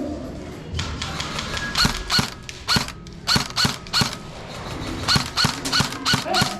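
Airsoft gun firing about a dozen single shots, irregularly spaced at roughly two a second, starting about a second in.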